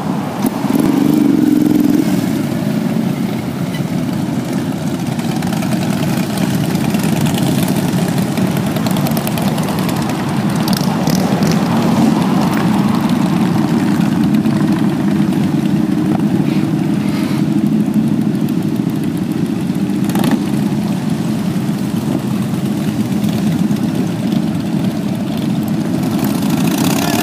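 Loud, steady engine noise from a long column of motorcycles, mostly cruisers, riding slowly past one after another.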